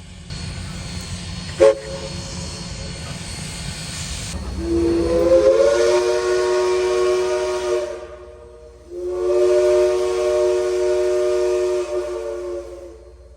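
Southern Railway 4501's Princeton three-chime steam whistle: a short toot, then two long blasts of the same chord, the first sliding up into pitch as it opens. Steam hisses throughout.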